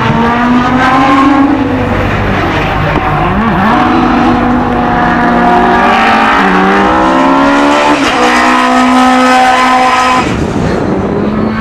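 Single-seater hillclimb racing car's engine at high revs, accelerating hard up through the gears: the pitch climbs, falls sharply at each upshift and climbs again. The engine sound drops away abruptly about ten seconds in.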